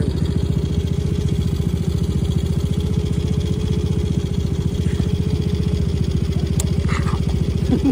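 Motorcycle engine idling steadily, with a fast, even beat.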